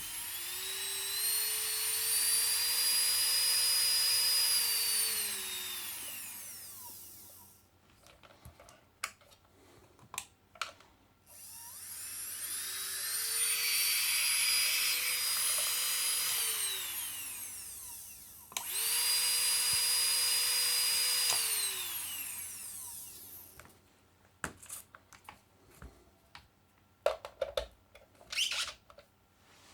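Marathon 3 Champion electric nail drill's handpiece motor spinning up to a steady high whine and winding down, three times. The second run stops abruptly and the third starts straight after. Light clicks of handling and switching come between the runs and near the end.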